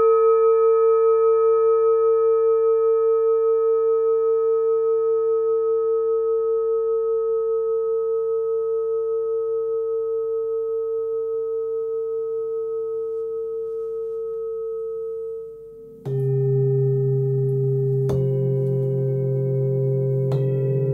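A 12 cm hand-forged singing bowl tuned to about 450 Hz ringing out, one clear tone with fainter overtones above it, slowly fading with a gentle wavering. About 16 seconds in it cuts off and a different, lower set of steady ringing tones starts, with a few sharp strikes.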